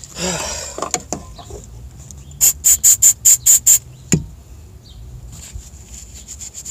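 A small brush scrubbing corrosion off a neutral safety switch's wiring connector in seven quick hissing strokes, about five a second, after a brief hiss at the start. A single sharp knock follows just after the strokes.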